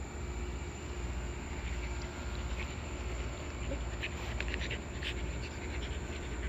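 Steady high-pitched insect buzz with a low rumble underneath, and a cluster of short clicks and rustles about four seconds in.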